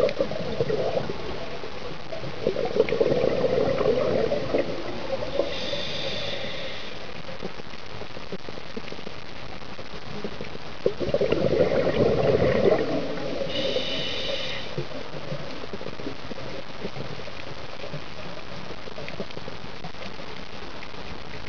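Scuba diver breathing through a regulator, heard underwater: twice, a rush of exhaled bubbles is followed by a short, higher inhalation hiss with a whistling tone, over a steady underwater hiss.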